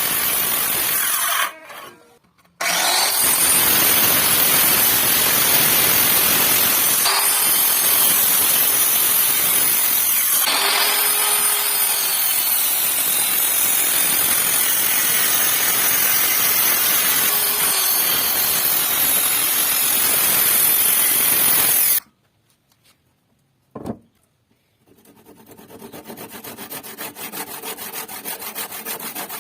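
Power tool cutting wood on a timber beam, running steadily with a short break near the start. It stops about two-thirds of the way through, followed by a single click and then a quieter, fast rhythmic scraping that grows louder near the end.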